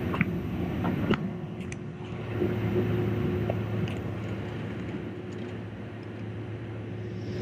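Cabin noise of a Boeing 767-300ER taxiing: the engines' steady idle hum with a low, even drone. A couple of short knocks come in the first second or so.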